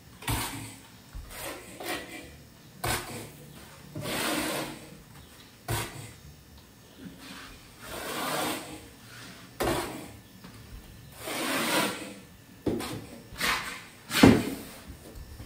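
Trowel scraping over Schluter Kerdi waterproofing membrane on a shower wall, smoothing it flat: a series of irregular rasping strokes, each half a second to a second long. A sharper knock comes near the end.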